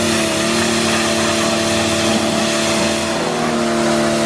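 Greenworks Pro 60V battery pressure washer running: a steady motor-and-pump whine over the hiss of the water spray.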